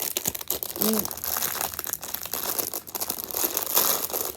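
Plastic toy packaging being handled and crumpled: a continuous run of small crackles.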